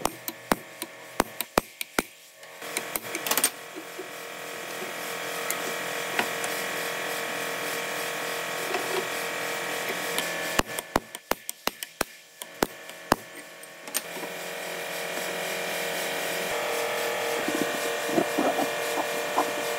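A small machine motor running steadily, stopping twice and building back up gradually each time it restarts. While it is stopped there is a quick run of sharp clicks.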